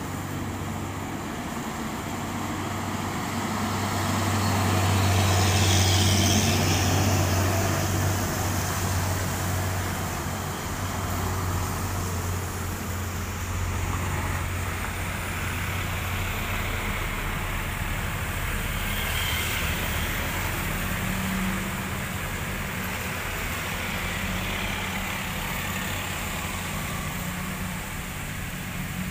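Heavy trucks passing on a wet road: a low diesel engine drone with tyres hissing on the wet tarmac, swelling to its loudest about five seconds in and again, more weakly, around twenty seconds in.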